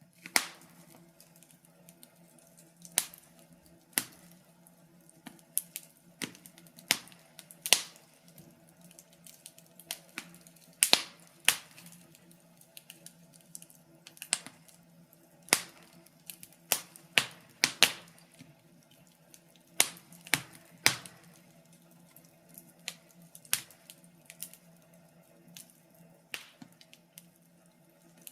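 Wood fire crackling: irregular sharp pops and snaps, sometimes several close together, over a faint steady low hum.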